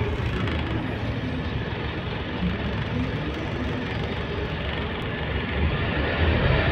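Scania K280UB city bus heard from inside the cabin: diesel engine and road noise running steadily, with faint rising engine tones, growing louder near the end as the bus picks up speed.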